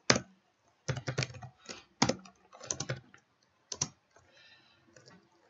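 Computer keyboard being typed on: irregular clusters of key clicks that thin out about four seconds in.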